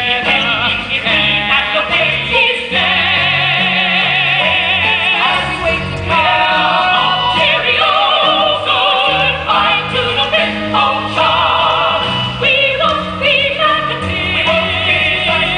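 A musical-theatre song: voices singing with wide vibrato over an instrumental accompaniment with a bass line.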